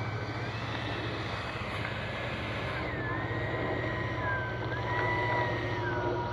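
Electric ducted fan of a 70mm E-flite F-16 RC jet whining, its pitch stepping up and down several times as the throttle is moved.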